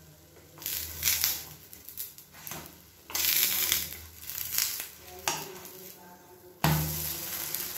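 Steel and wooden spatulas scraping and knocking against a nonstick kadai as a sweet rice appam is worked loose and turned over. About two-thirds of the way in, a sudden steady sizzle starts as the uncooked batter side lands in the hot ghee and oil.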